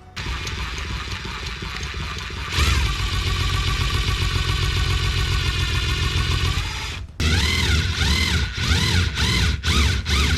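A small electric motor, likely a power tool, running steadily with a low hum. About a third of the way in it gets louder. After a brief stop past the middle it runs again, its pitch dipping and recovering several times.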